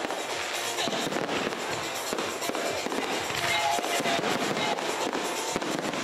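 Aerial fireworks shells bursting in rapid succession with dense crackling, several going off at once, with music playing beneath.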